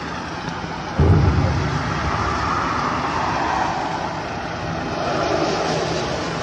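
Tipper semi-truck unloading coal: the engine runs steadily, a sudden loud low thud comes about a second in, and a rushing noise follows.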